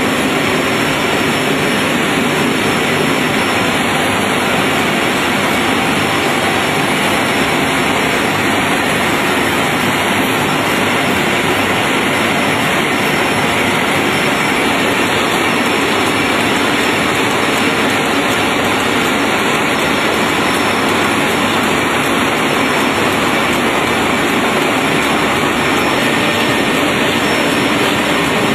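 Adult diaper making machine running on its production line: a loud, steady, even mechanical noise that does not change.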